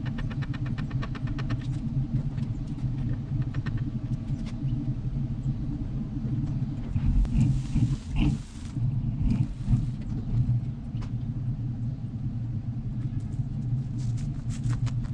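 A motor vehicle's engine running steadily at low revs.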